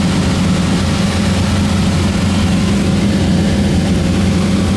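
Cessna 172's piston engine and propeller droning steadily in flight, heard inside the cabin with a constant rush of air noise.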